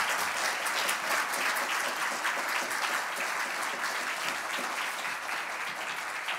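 Audience applauding at the end of a talk: many hands clapping together, easing off slightly near the end.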